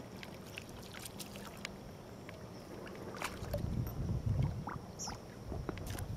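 Light water splashing and lapping beside a pontoon boat as a small hooked fish is played at the surface and brought to hand. Scattered faint clicks, and a louder low rumble around the middle.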